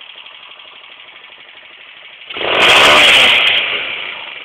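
Small ATV engine running steadily, then revved hard a little over two seconds in: a loud, rasping surge lasting about a second that dies back down near the end.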